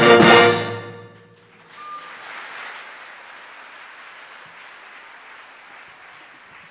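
Symphonic wind band ends a piece on a loud full chord with percussion hits, cut off about a second in. After a short gap the audience begins applauding and keeps clapping steadily.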